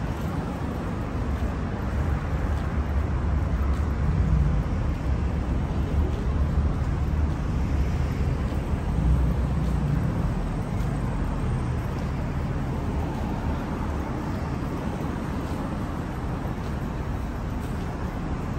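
Street traffic: cars driving past on a wide city avenue, a steady low rumble that is heaviest in the first half and eases off a little after about twelve seconds.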